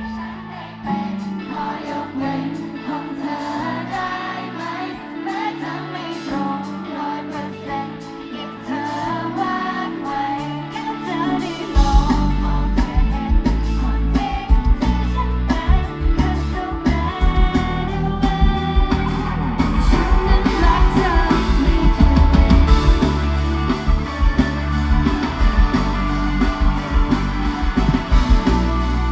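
Pop song played loud over a concert sound system, with female singing. It starts light, without deep bass, and the full beat and bass come in about twelve seconds in.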